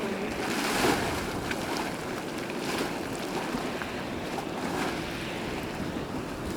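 Geothermal fumarole venting steam with a steady rushing hiss that swells slightly now and then.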